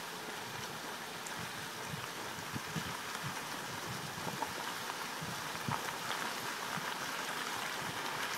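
Tyres of a slow-moving vehicle rolling on a wet gravel road, a steady hiss with many small irregular crackles and pops of wet grit under the tread.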